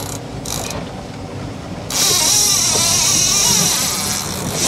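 Fishing boat underway: its engine runs steadily, and about two seconds in a loud rushing hiss joins it and stays.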